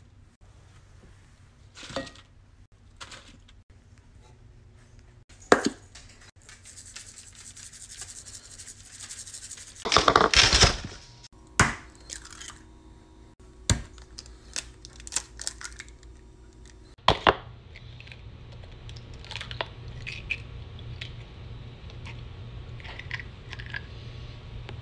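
Eggs tapped and cracked open against a bowl: scattered sharp knocks and cracks, loudest in a cluster about ten seconds in. A stretch of faint hissing comes before that cluster.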